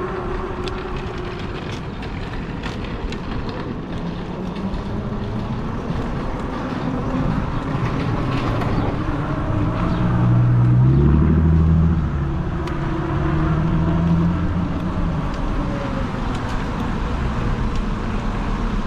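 Steady road and traffic noise with a vehicle engine that grows loudest about ten to twelve seconds in, then fades.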